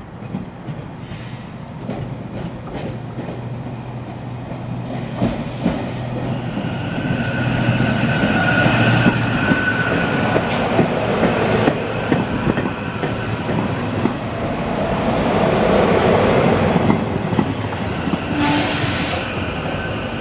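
Rotem Silverliner V electric commuter railcars moving through the station: steady rail noise with wheel clicks over the joints and a high whine partway through. It grows louder toward a peak about three quarters of the way in, then eases.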